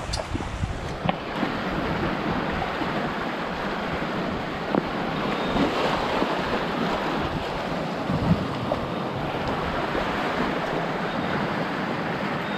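Steady rushing wind on the microphone, with a couple of light knocks about five and eight seconds in.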